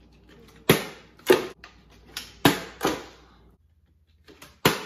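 Plastic water bottle and small dice knocking and clattering on a hardwood floor in a string of sharp knocks, about six or seven, the loudest in the first second and a half: a bottle flip onto a dice stack failing and knocking the dice over.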